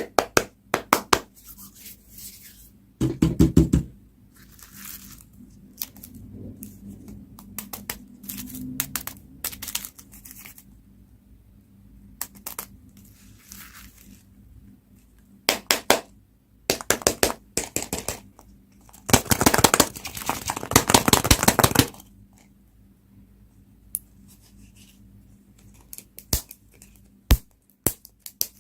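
Plastic candy wrappers being crinkled and torn open by hand, in short crackling bursts with a longer stretch of crinkling about two-thirds of the way through. A dull thud comes about three seconds in.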